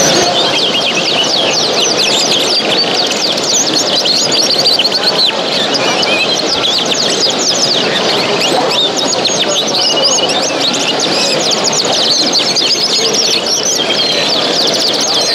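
A loud chorus of many small cage birds chirping and singing at once, a dense, unbroken tangle of quick high chirps, over a steady background murmur of a crowded hall.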